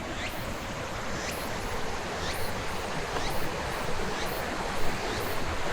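Steady rushing of a fast mountain river flowing below, with faint high ticks about twice a second.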